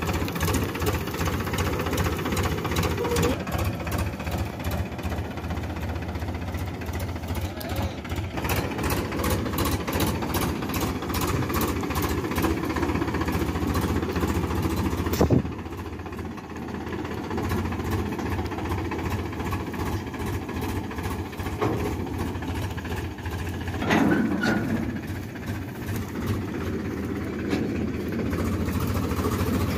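Powertrac Euro 50 tractor's three-cylinder diesel engine running steadily with a rapid, even beat while it tows a thresher. A sharp clunk comes about halfway through, after which the engine runs a little quieter.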